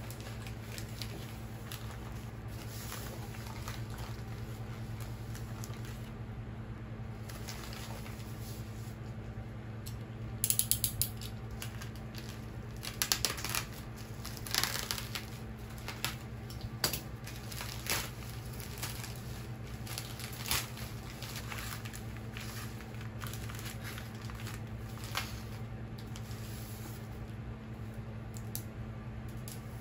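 A plastic bubble mailer being handled and opened: scattered crinkling and rustling bursts, loudest around the middle, over a steady low hum.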